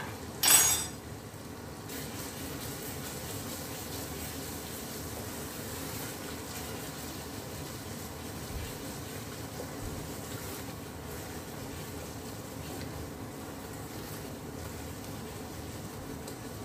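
Onion, tomato and spice masala sizzling and bubbling in desi ghee in a stainless steel pot as it is stirred with a spoon, a steady sizzle throughout. About half a second in there is one brief, loud, sharp noise.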